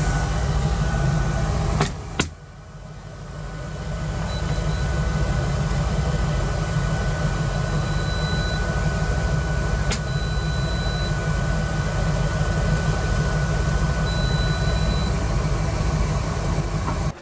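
A loud steady hum with a click about two seconds in, where it drops away and swells back. Over it, the control panel of a Hotpoint Aqualtis washing machine gives several short, high beeps as its buttons are pressed to set a programme.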